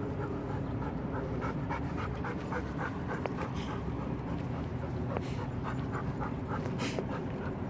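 Black golden retriever panting rapidly with its tongue out, a quick even run of breaths at about three to four a second.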